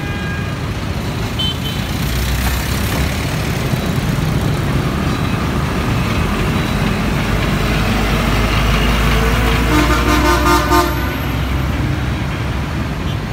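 Heavy truck engine rumbling past close by in a steady stream of motorbike and car traffic. A vehicle horn honks for about a second near the ten-second mark.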